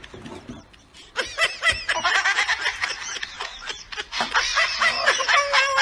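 High-pitched laughter that starts about a second in and keeps going in quick repeated bursts.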